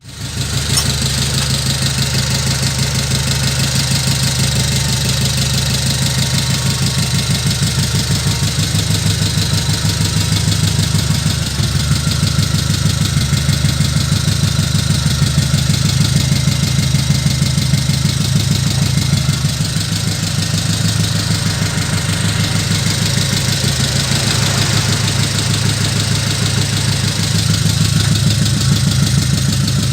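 Engine idling steadily with a fast, even throb.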